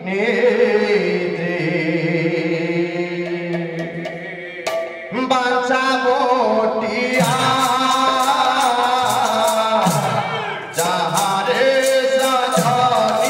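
Odia Pala devotional singing: voices chant long held notes, then about seven seconds in a steady beat of small hand cymbals and drum joins the singing.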